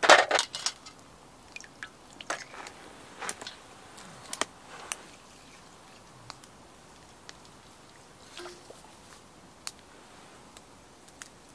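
Oyster shells clattering onto a metal tray as they are set down with tongs, loudest in the first second. Scattered small clicks and pops follow, from the wood campfire crackling.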